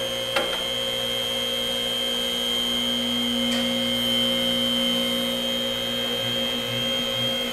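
Electric hydraulic pump motor of a vehicle lift running to raise a car: a steady electric hum with a high whine over it.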